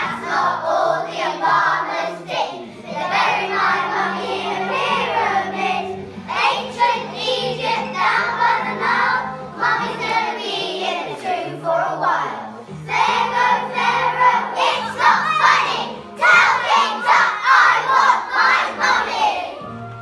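A group of young children singing a song together in unison over backing music with a steady bass line, in phrases with short breaks between them.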